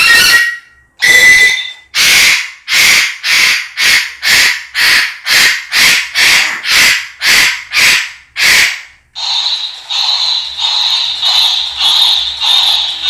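African grey parrot giving a long run of harsh, loud screeches, about two a second, in an agitated, angry outburst. Near the end the separate screeches give way to a continuous pulsing buzz.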